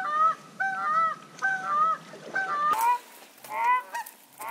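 Canada goose honks: two-note honks repeating evenly about every 0.7 seconds, then, after a break nearly three seconds in, higher, more varied honks that rise in pitch.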